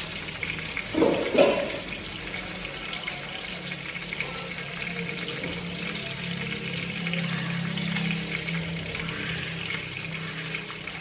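Climbing perch frying in oil in a nonstick pan, giving a steady sizzle. About a second in there are two brief louder sounds, the second with a sharp click.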